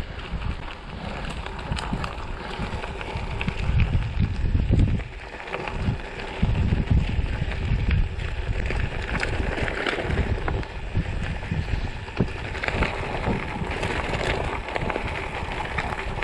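Wind buffeting the microphone of a gravel bike in motion, in uneven gusts, over a steady hiss of tyre and riding noise.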